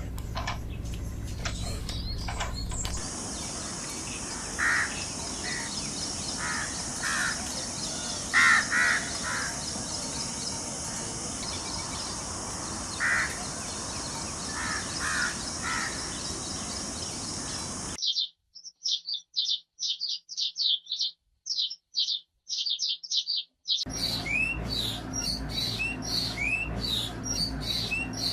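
Birds calling, changing between clips: short calls every second or two over a steady high hiss, then a run of rapid high chirps, then more chirping with short rising calls.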